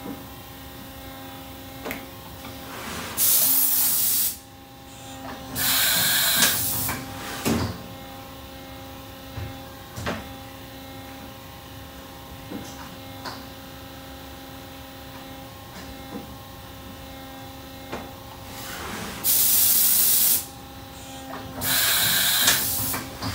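Automatic tool change on a Doosan Puma MX3000 CNC turning center: four short bursts of compressed air hissing, in two pairs, with a few clicks and knocks between, over the machine's steady electrical hum.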